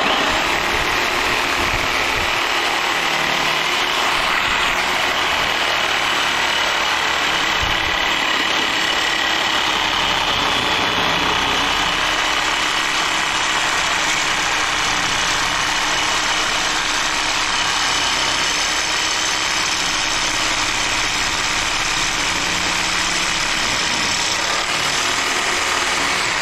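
A motor vehicle's engine running steadily, with even running noise and no change in speed.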